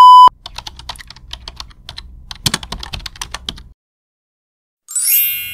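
A loud, steady beep cuts off just after the start, then rapid computer-keyboard typing clatters for about three and a half seconds. After a second of silence a bright chime sounds near the end and rings on.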